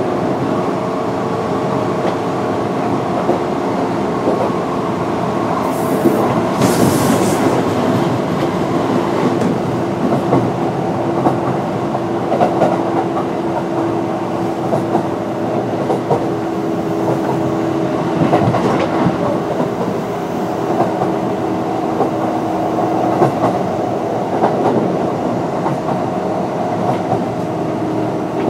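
Kintetsu 8600 series resistor-controlled electric train running at speed, heard from inside the car: a steady rumble and hum of the running gear with wheel clicks over the rail joints. A brief high hiss comes about six to seven seconds in.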